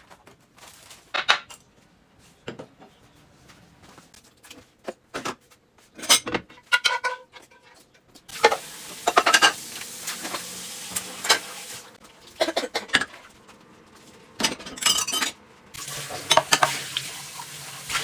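Kitchen utensils clinking and knocking against pots and dishes, with food sizzling in a hot pan in two stretches, about eight seconds in and again near the end.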